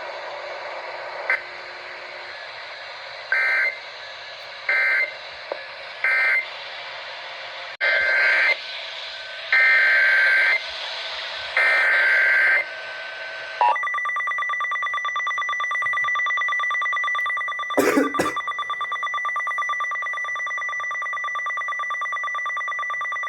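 NOAA Weather Radio Emergency Alert System signals over radio hiss: three short bursts of digital data screech, then three longer ones (the SAME header of the next alert), followed by the steady 1050 Hz weather-radio warning alarm tone, which carries a brief crackle partway through.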